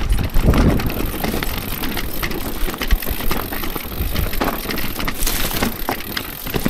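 Orbea Rise electric mountain bike riding down a rocky trail: tyres crunching over loose stones and rock steps, with a dense run of knocks and rattles as the bike jolts over them.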